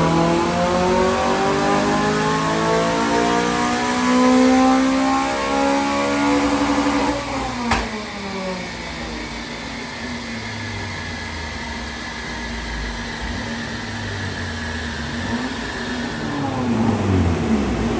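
Honda Civic Type R FN2's 2.0-litre K20 four-cylinder engine on a rolling-road power run: the revs climb steadily under full load for about seven seconds, then a single sharp pop as the throttle is closed. The revs then fall away slowly as the car winds down on the rollers.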